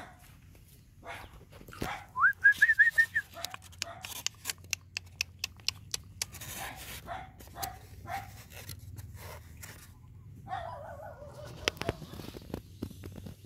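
Puppies whimpering in short whines: a high wavering one about two seconds in, brief yips around seven seconds and a falling whine near eleven seconds. A run of sharp clicks and crackles from a styrofoam food box being handled goes between them and is the loudest sound.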